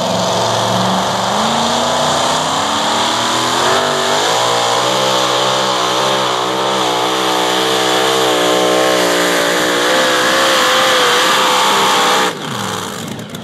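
Supercharged engine of a super modified two-wheel-drive pulling truck at full throttle, dragging the pulling sled. Its pitch climbs twice in the first four seconds, then wavers up and down through the pull, and the engine drops off abruptly near the end as the pull finishes.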